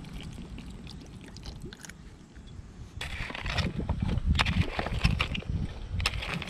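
Wind rumbling on the microphone, growing much stronger about three seconds in, with light clicks and rustles of hands at a steel pot of food.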